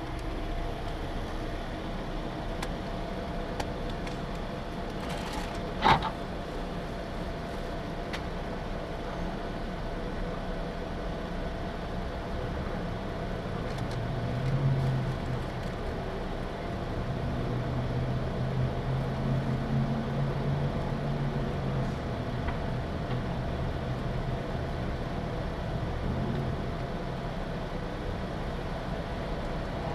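Steady motor-vehicle running noise whose low rumble swells twice in the middle, with one brief sharp click about six seconds in.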